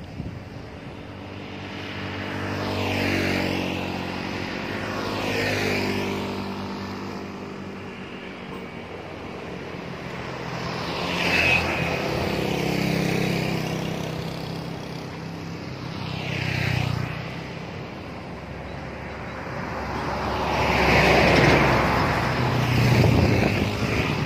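Road traffic passing one vehicle at a time: motorcycles and cars go by in turn, each engine swelling and then dropping in pitch as it passes. There are about six pass-bys, and the loudest and longest comes near the end.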